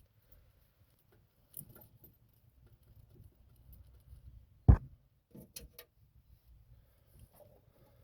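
Small clicks and taps of hands fitting a wire terminal onto a connection, with one sharp click about four and a half seconds in and a quick cluster of clicks just after.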